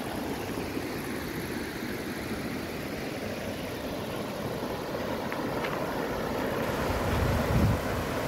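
Water rushing steadily down a weir's stepped cascade, with a brief low rumble about seven seconds in.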